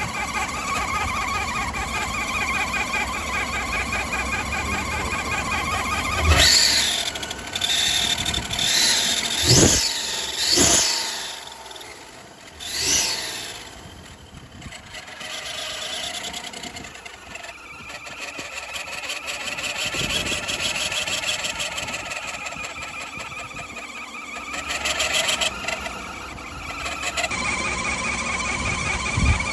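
Chevy Avalanche's 5.3-litre V8 running with an unidentified noise that the owner is trying to diagnose: a steady running sound with a fast, even pulsing tone in it. Between about six and thirteen seconds in there are several louder squeal-like sounds that rise and fall in pitch.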